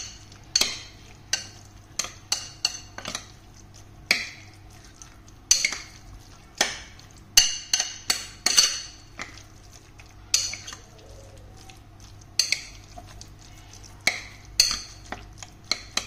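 Metal spoon stirring and scraping a seasoned minced-pork filling in a ceramic bowl, knocking against the bowl in irregular clinks, about one or two a second.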